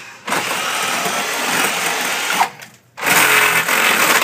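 Power drill with a long bit boring upward through wooden ceiling framing, the motor running under load. It starts a moment in, stops for about half a second roughly two and a half seconds in, then runs again.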